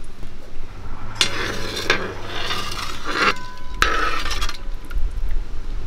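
A metal ladle scraping and stirring in a wide metal pan of whole spices frying in hot oil. It goes in three scraping strokes with a faint metallic ring, over a light sizzle.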